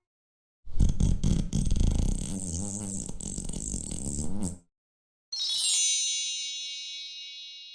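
A comedy fart sound effect, a few seconds of loud sputtering with a wavering pitch. Then a magic-wand sound effect: a quick shimmering sweep of high chimes that rings on and slowly fades out.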